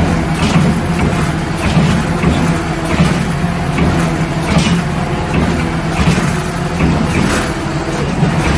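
Truck engine running steadily while on the move, with road noise and irregular knocks and rattles.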